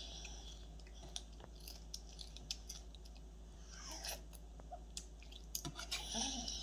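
A toddler eating almond flake cereal with milk: a metal spoon clicks and scrapes against the bowl again and again, between chewing sounds.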